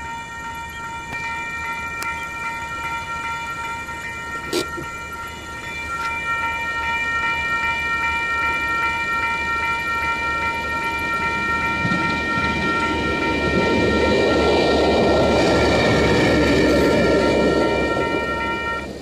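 Level crossing's electronic warning bell ringing continuously, cutting off near the end. Under it, a train's rumble builds from about halfway and is loudest near the end.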